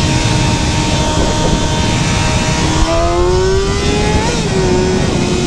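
Sport motorcycle engine running at speed under heavy wind noise. It holds a steady pitch, then revs up from about halfway through and drops back at a gear change a little later.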